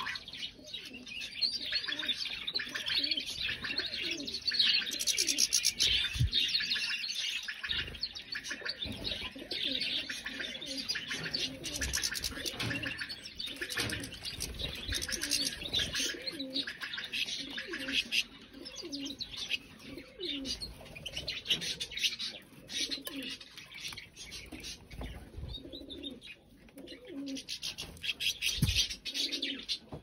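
Canaries singing, a continuous chorus of high trills and chirps, with other small finches calling among them. Short low calls recur underneath, and there are a couple of low thumps.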